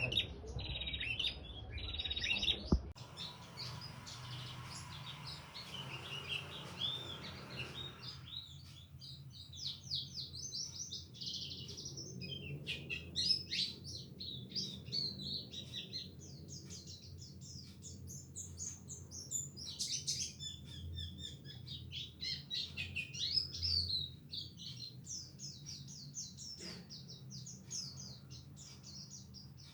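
Songbirds chirping and twittering in rapid, overlapping bursts of high chirps and trills. A low steady hum runs underneath.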